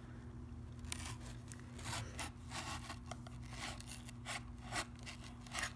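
Knife blade scraping and cutting along the sealed flap of a small cardboard box, in a series of short, irregular strokes as it works through a stubborn seal.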